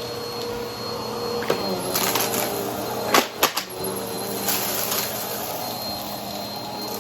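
Brushroll vacuum cleaner running steadily, with crackling and sharp clicks as debris is sucked up, two loud clicks about three seconds in.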